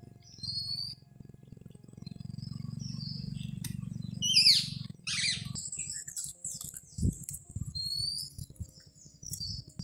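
Birds chirping and calling, loudest in a few quick downward-gliding calls about four seconds in, with short high chirps at the start and near the end. Underneath runs a low rumble, and a single thump comes about seven seconds in.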